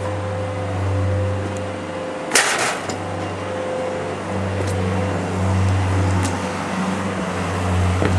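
A steady low mechanical hum, with one sudden loud clatter about two seconds in.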